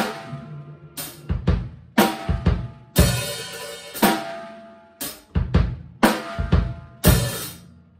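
Acoustic drum kit played in a heavy rock groove: a big cymbal-and-bass-drum hit about once a second, each ringing on, with snare and other drum strokes between.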